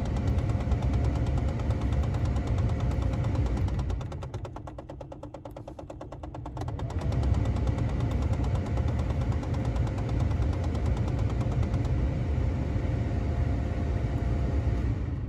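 Nissan Note E12's cabin heater knocking with a fast, even rattle over a steady whine. The sound drops quieter about four seconds in and comes back up about three seconds later.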